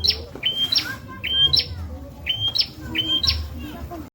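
Prenjak (prinia) calling: a sharp two-part note, a short low whistle jumping straight up to a higher one, repeated over and over in quick pairs, over a low steady hum.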